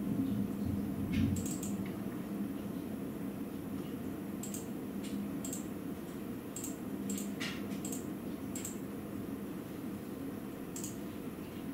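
Steady rain in a thunderstorm, with a thunder rumble dying away in the first second or so. Scattered sharp ticks of drops strike close by.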